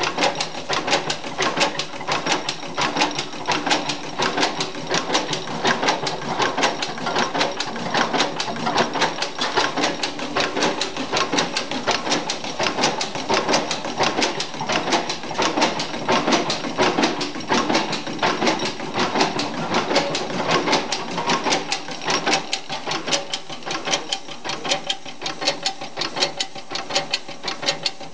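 1903 40 hp Union stationary gas engine running, its mechanism making a fast, even clatter that holds steady throughout.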